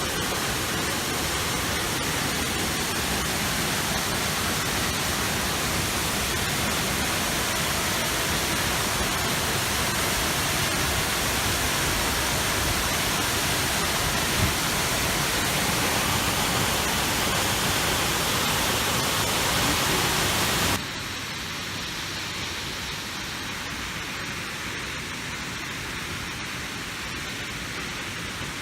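Steady rushing roar of a waterfall's falling water. About 21 seconds in it drops suddenly to a quieter, duller rush.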